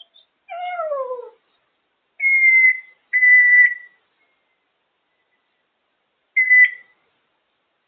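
African grey parrot calling and whistling: one falling call about a second long, then two steady whistles of about half a second each, and a shorter third whistle a few seconds later.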